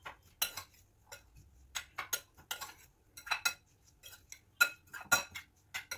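A metal spoon stirring chopped vegetables in a glass bowl, clinking against the glass in a string of irregular sharp clinks. The loudest come about four and a half and five seconds in.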